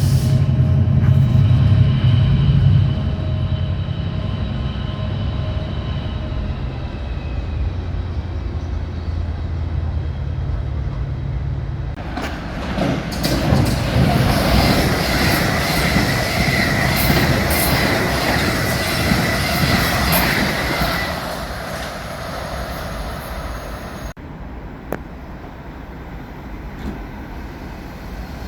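A train running on the rails with a steady low rumble; about halfway through, the wheels squeal with a high steady tone for several seconds before the sound dies down.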